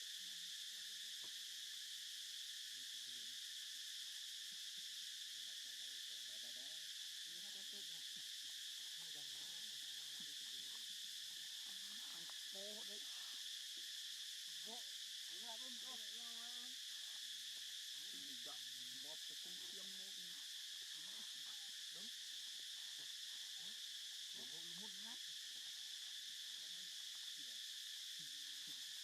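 Steady, unbroken high-pitched insect chorus, with faint distant voices underneath.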